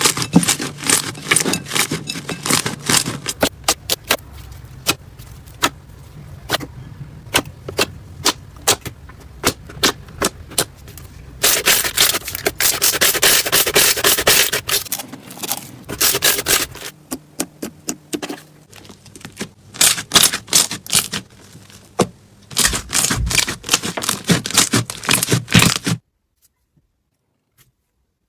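Slime being squeezed and pressed by hand: a rapid run of sharp crackling pops and sticky squelches, thicker in a couple of stretches, then cutting off suddenly near the end.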